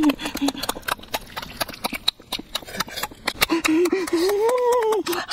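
Wet chewing and lip-smacking of people eating cooked pig intestine: a rapid, irregular run of sharp mouth clicks. About four seconds in, a voice hums, rising and falling.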